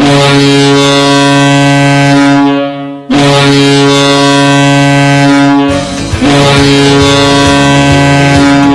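Halifax arena goal horn, a deep air horn signalling a goal: one long blast that fades out near the three-second mark, then a second blast held on. A song with a drum beat comes in under the second blast.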